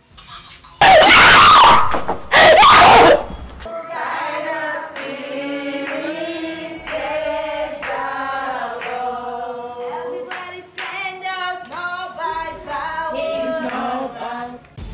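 Two very loud screams in the first three seconds, then voices singing a slow melody of held notes until just before the end.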